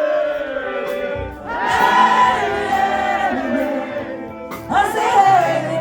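Live band music with several voices singing together in long held notes, a short break about a second in and a new phrase starting near the end.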